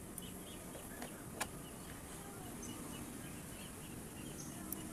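A few small sharp clicks and taps of the blender's metal switch parts being handled and fitted back together, the clearest about a second and a half in and near the end. Faint repeated chirping runs steadily in the background.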